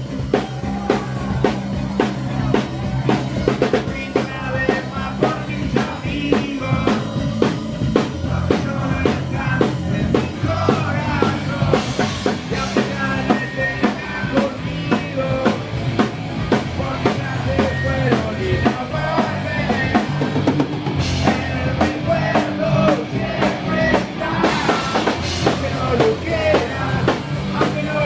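Punk rock band playing live: a steady drum-kit beat under electric guitars and bass, with a singer's voice over it.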